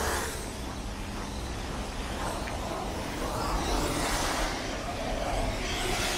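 City street traffic: cars passing one after another, each swelling up and fading away over a steady low rumble.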